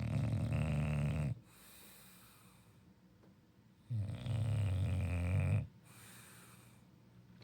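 A sleeping bulldog snoring: two loud, low snores about four seconds apart, with quieter breaths between them.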